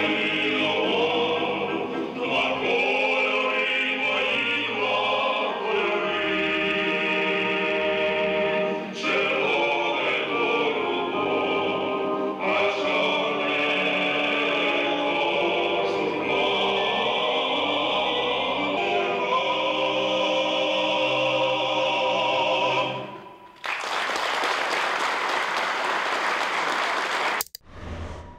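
Male vocal quartet singing a song in harmony. About twenty-four seconds in the singing ends and the audience applauds, until the sound cuts off abruptly near the end.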